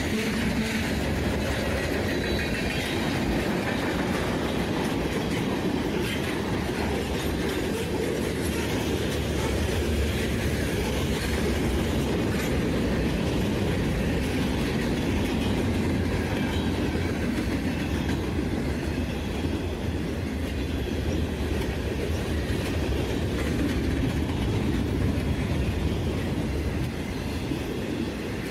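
Cars of a long mixed freight train (autoracks, tank cars, centerbeam flatcars) rolling past at steady speed: a continuous rumble of steel wheels on rail with clacking over the joints.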